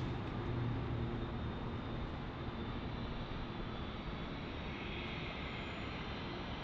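Jet airliners' engines running at taxi power, a steady rumble. A low hum fades about a second in, and a higher whine comes up in the second half.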